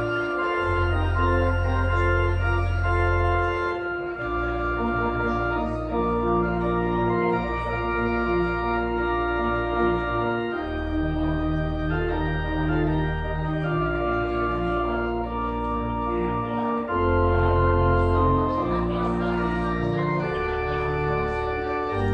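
Organ playing sustained chords over held bass notes that change every few seconds.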